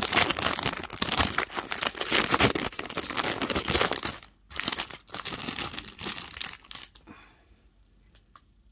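Clear plastic packaging crinkling as it is handled and pulled open, dense crackling for about four seconds, a brief pause, then more until about seven seconds in, ending in a few faint clicks.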